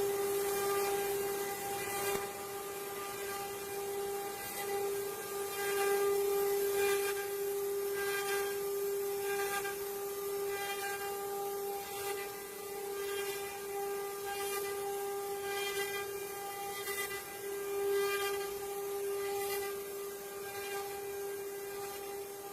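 CNC wood-carving router's spindle running with a steady whine while its bit cuts wood, with irregular scraping cutting sounds over it.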